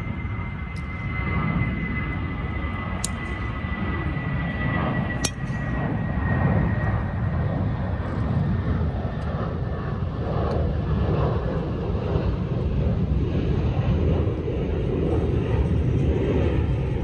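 Jet airplane flying low overhead: a steady engine rumble with a high whine that slowly falls in pitch over the first several seconds, growing louder. Two sharp clicks about three and five seconds in, golf balls being struck on the range.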